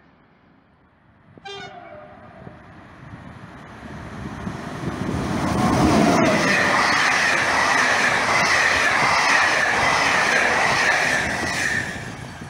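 A BB 22200 electric locomotive gives a short horn blast about a second and a half in, then passes at speed hauling passenger coaches. The rumble of wheels on rail swells to a loud, steady pass-by, with a high wavering whine over it while the coaches go by, and it fades near the end.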